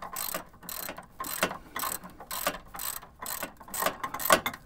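Small hand ratchet wrench worked back and forth to run a bolt in: a quick run of pawl clicks on each return stroke, about two strokes a second, with the sharpest clicks near the end.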